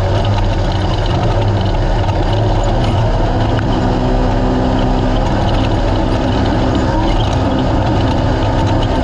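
Naturally aspirated UTV race car engine running steadily under load, a constant loud drone with a harsh, noisy edge and no sudden events.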